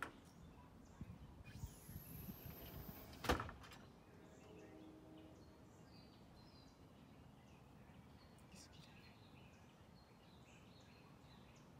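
Near silence: quiet outdoor background with faint bird chirps, broken by one short sharp knock a little over three seconds in.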